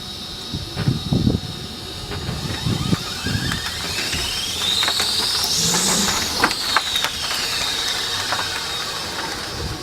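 Electric van's IGBT inverter and three-phase induction motor whining. The pitch climbs to a peak about six seconds in and then falls back, over a steady high tone, with scattered clicks and knocks.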